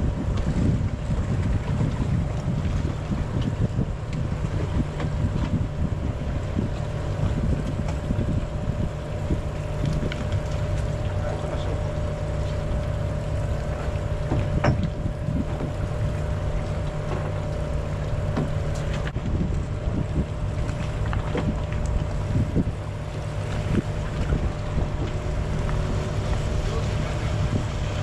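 Boat engine running steadily at idle, a low hum, with wind buffeting the microphone.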